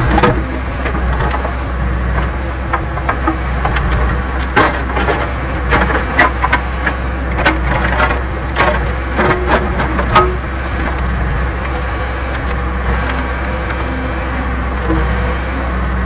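John Deere 410B backhoe's diesel engine running steadily under load as the rear bucket tears through tough roots and vines of a dead ohia stump. A run of sharp wood cracks and snaps comes between about four and ten seconds in, as the roots give way.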